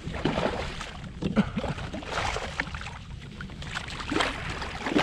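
Water splashing and sloshing beside a kayak as a hooked fish is played at the surface and scooped into a landing net, in irregular splashes.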